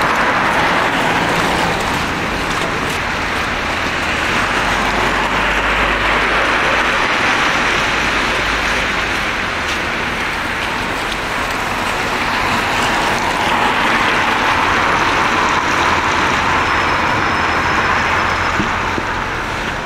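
Road traffic on a wet road: car tyres hissing on the wet surface, swelling as vehicles pass, over a low engine rumble.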